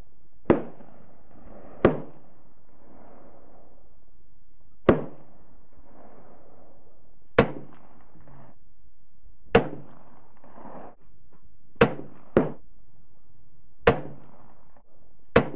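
About nine sharp gunshots at a shooting range, irregularly spaced from under a second to about three seconds apart, each with a short echo.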